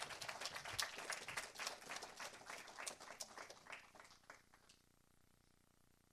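Congregation applauding: scattered hand claps from a small crowd that thin out and stop about four and a half seconds in.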